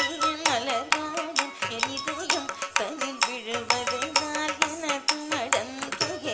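Live Carnatic music for a Bharatanatyam varnam in raga Kamas, Adi tala: a sung melody with sliding ornaments over sharp, rhythmic percussion strikes.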